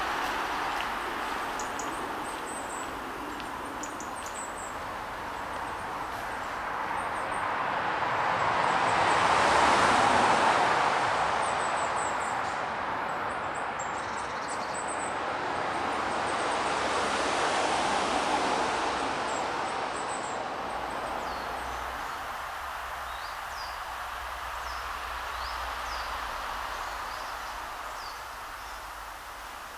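A distant rushing noise that swells and fades twice, with small high bird chirps over it.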